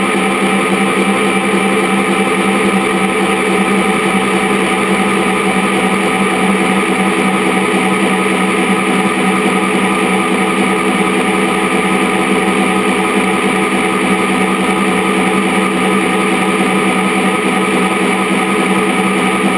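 Kamov Ka-26 helicopter running in flight, heard up at its coaxial rotor head: a steady mechanical drone with a stack of unchanging tones over a rushing noise, holding level throughout.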